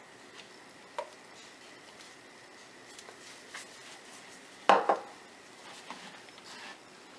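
Soap-making utensils and containers being handled on a work surface: a light click about a second in, a few faint scrapes and ticks, and a louder double knock a little after halfway.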